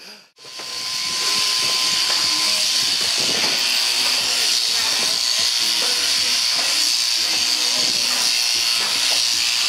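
Sheep-shearing handpiece on an overhead-drive shearing plant running steadily as it cuts the fleece off a ram, a continuous high-pitched hiss that fades in about a second in.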